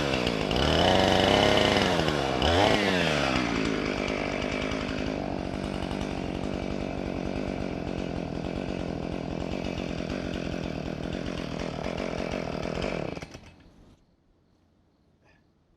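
Chainsaw engine revving up and down a couple of times, then running steadily at a lower speed, then shut off about thirteen seconds in.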